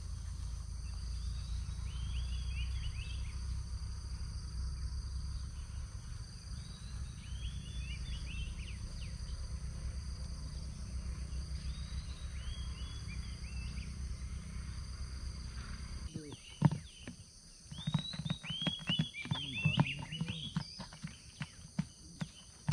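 Outdoor ambience: a steady high insect drone with short groups of bird chirps over a low rumble. About two-thirds of the way in, the rumble stops abruptly, and rapid falling chirps and scattered clicks follow.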